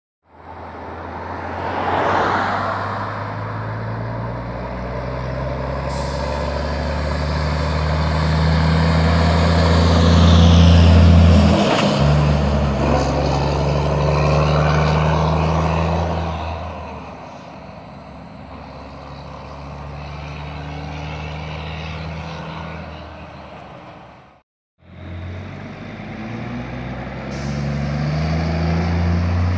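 Volvo FH12 460's straight-piped 12-litre inline-six diesel pulling away and accelerating hard through the gears, the open exhaust loud and deep, with a short break in the pull about twelve seconds in. The sound then fades as the truck moves off, cuts out for a moment, and starts again, growing louder as another truck run comes closer.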